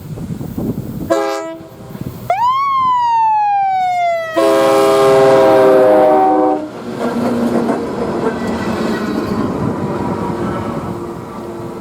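Train horn sounding over the rumble of a passing train: a short chord blast about a second in, then a sliding tone that rises and falls, then a longer, loud chord blast that fades away.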